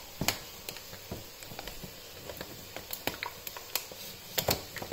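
Scattered light clicks and taps from a tub of gravy granules and a spoon being handled on a kitchen counter, with a cluster of taps near the end.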